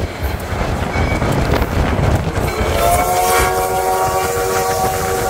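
Steam whistle of locomotive 148 blowing one long, steady blast that starts a little under three seconds in, over the rumble and clatter of the moving train.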